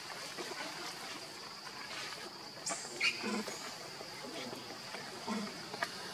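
Outdoor ambience: a steady high-pitched hiss with a few faint, short animal calls and clicks, the clearest about three seconds in.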